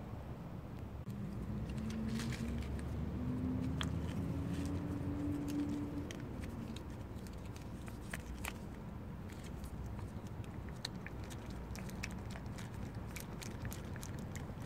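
A cat licking and chewing a paste-like cat treat from a plastic pouch: many quick, wet clicks of the tongue and mouth, coming thickest in the second half. In the first half a low hum rises in pitch.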